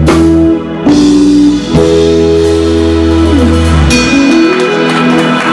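Live blues band playing the closing instrumental bars of a song with guitar, bass and drums, ending on a long held chord.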